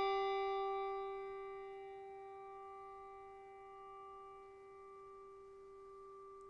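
A struck bell ringing on after a single strike, one clear tone with overtones slowly fading away. It is tolled in remembrance after a departed person's name is read.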